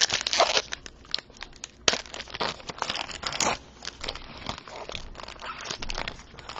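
A trading-card pack wrapper being torn open and crinkled: a run of sharp crackles, loudest near the start and again around two to three seconds in, then dying down toward the end.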